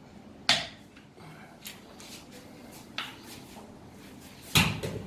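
Sharp clicks and knocks of hard objects being handled, spaced a second or more apart, then a louder clatter of several knocks near the end.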